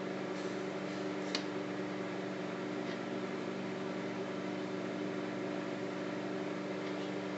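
Microwave oven running with marshmallows heating inside: a steady hum with several low tones over a fan-like hiss, and a single short click about a second and a half in.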